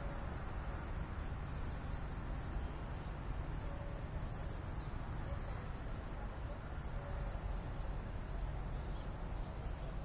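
Small birds chirping in short, repeated high notes, with one longer falling whistle near the end, over a steady low rumble.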